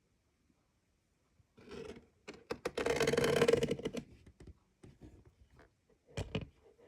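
The opened casing of a terahertz foot device being handled: a couple of seconds of scraping and rattling about one and a half seconds in, then a few clicks and a pair of knocks near the end.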